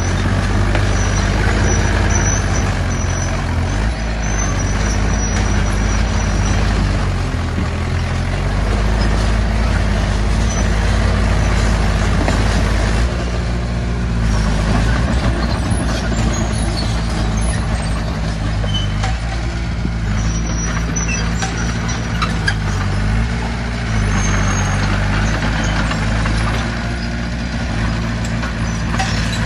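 Heavy diesel engines of a bulldozer and a dump truck running under load as they push rubble. The engine note changes pitch several times, near the middle and again about two-thirds of the way through.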